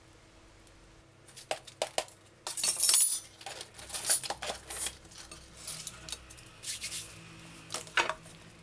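Metal measuring spoons clinking and a plastic salt tub and its lid knocking as they are handled and set down on a plastic cutting board: a string of small clinks and knocks starting about a second in, with a louder scrape and rustle around the third second.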